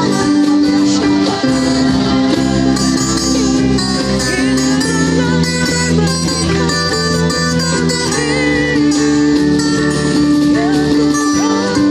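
Live praise-and-worship song: acoustic guitar strummed over sustained keyboard chords, with a voice singing.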